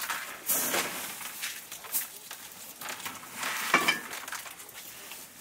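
Dry maize kernels being handled by hand on round trays: scattered rustling and clicking, with a few sharper knocks.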